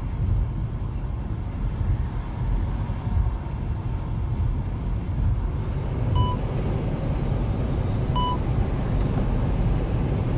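Steady low rumble of a semi-truck cab at highway speed, with a short electronic beep from the cab about six seconds in and again about eight seconds in.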